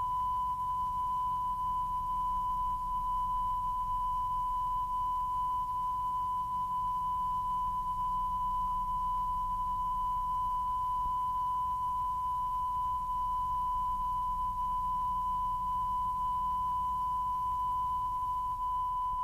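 Steady 1 kHz test tone, a single unwavering beep, with a faint low hum beneath it.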